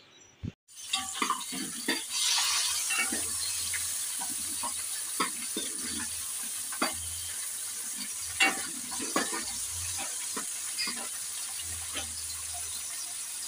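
Chopped green chillies and tomato pieces frying in a wide aluminium pan, with a steady sizzle that swells about two seconds in. A steel spoon clinks and scrapes against the pan as it stirs, in many sharp clicks.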